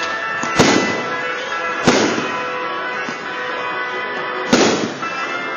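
Fireworks shells bursting: three sharp bangs, about a second and a half and then two and a half seconds apart, over music playing steadily underneath.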